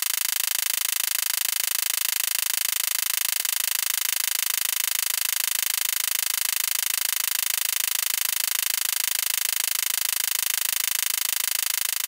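Simulated recreation of a high-pitched ticking from an Aprilia Falco SL1000 motorcycle: a rapid, even tick at about 1620 a minute, set at roughly half the engine revs and with almost no low engine sound beneath it.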